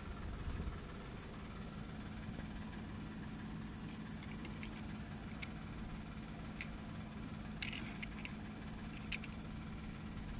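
A steady low engine-like hum, with a handful of small sharp clicks in the second half.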